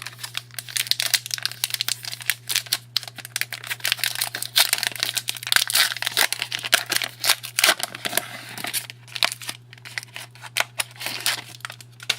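Trading card packaging crinkling and rustling in dense, irregular crackles as the cards are handled, over a steady low hum.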